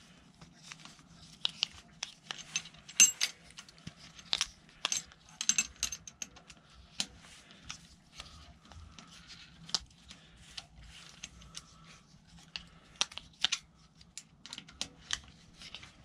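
Irregular metallic clicks and clinks of a small hand tool and bolt at a mountain bike's rear dropout as a pannier rack mounting is done up by hand, a few with a brief ring, the sharpest about three seconds in. A low steady hum runs underneath.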